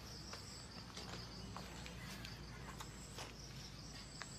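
Insects chirping in a steady, rapidly pulsing high trill over a fainter thin high whine, with a handful of sharp clicks and knocks scattered through it.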